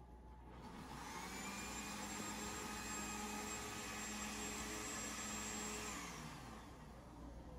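An electric appliance motor whirs, starting up about a second in, running steadily with a high whine, and winding down with a falling pitch near the end, over a low steady hum.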